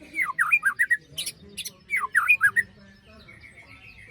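White-rumped shama (murai batu) singing fast downward-sweeping whistled notes mixed with harsh rasping 'besetan' calls, in two bursts; it goes quieter about two and a half seconds in.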